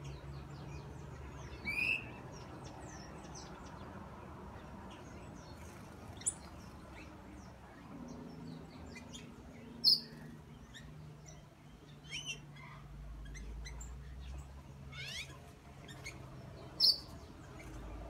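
Wild birds giving short, sharp chirps and calls at irregular intervals, the loudest about ten seconds in and again near the end, with a quick run of rising notes just before the last. A steady low hum runs underneath.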